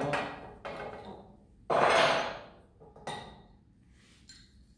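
Metal tools and steel drive parts knocking and clanking against a sterndrive lower-unit gearcase during disassembly. Sharp ringing knocks, one louder and longer clatter about two seconds in, and faint clicks near the end.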